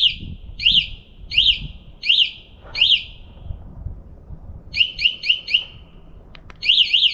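An e-bike's anti-theft alarm sounding in panic mode, really loud. Its electronic chirps sweep up and down in changing patterns: four chirps about two-thirds of a second apart, then a quick run of four, then a fast continuous warble starting near the end.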